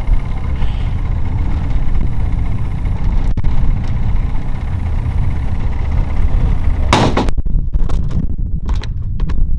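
Boat outboard motor idling with a steady low rumble, then a brief clatter about seven seconds in and a few scattered knocks on the aluminum boat deck near the end as the caught catfish is laid down.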